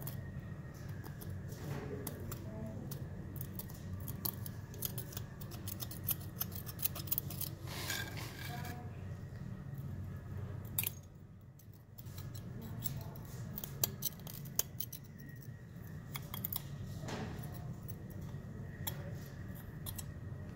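A slender metal pick scraping and ticking against a cast aluminum piece as leftover plaster investment is dug out of its crevices: irregular small scratches and clicks, with a short pause about eleven seconds in.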